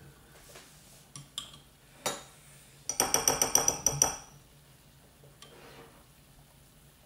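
Spoon clinking rapidly against a dish, about a dozen quick ringing strikes in a second, after a few single clinks of tableware.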